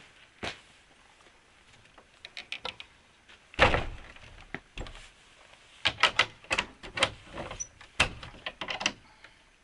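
Wooden plank door of an old cabin pushed shut with a loud thump about three and a half seconds in, followed by a quick series of sharp clicks and knocks as it is latched and locked.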